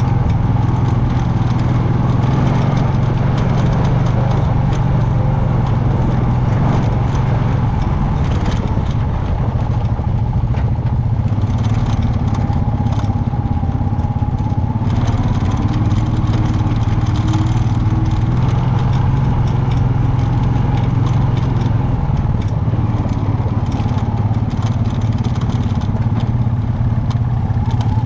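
ATV engine running at a fairly steady pitch, with scattered clicks and knocks over it.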